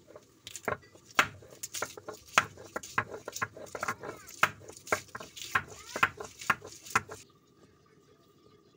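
Stone pestle of a shil-nora grinding stone knocking down on garlic cloves on the stone slab, crushing them with sharp, irregular knocks, about three a second. The knocks stop about seven seconds in.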